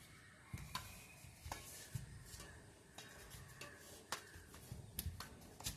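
Faint sharp taps of a badminton rally, rackets striking a shuttlecock, about eight or nine at uneven intervals.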